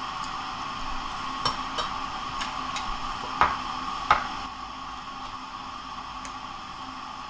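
Metal spoon and chopsticks clicking against ceramic bowls and dishes while eating: a few light clinks, then two louder ones about three and four seconds in, over a steady faint hiss.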